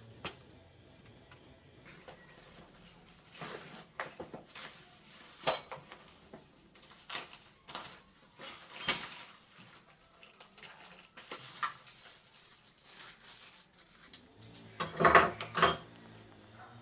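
Metal tools and parts being handled, clinking and knocking in scattered light strikes, with a louder clattering cluster near the end.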